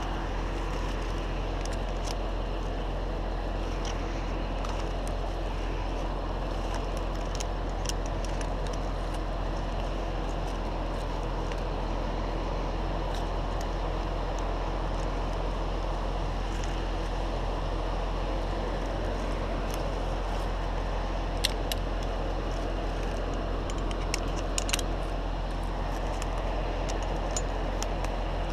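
Large engine running steadily at a constant speed, with a few sharp clicks or knocks about two thirds of the way in.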